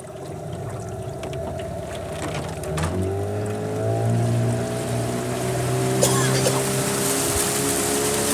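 Outboard motor on a small aluminium fishing boat, running low and then throttled up about three seconds in, its pitch rising before it settles at a steady speed. Water rushing along the hull grows louder near the end.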